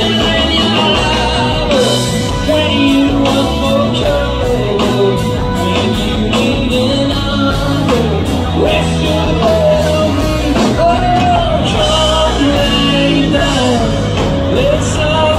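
Rock band playing live, heard from within the audience: a drum kit with regular cymbal hits under electric guitar, with a melody line that bends and slides in pitch.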